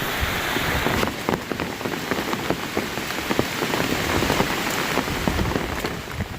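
Steady rain falling, with many individual drops striking close by as sharp ticks over the hiss. The sound drops away suddenly at the very end.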